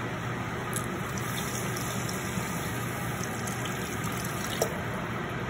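Water being poured steadily into an earthen clay pot onto fried chili-masala paste, a continuous splashing pour, with a couple of faint clicks.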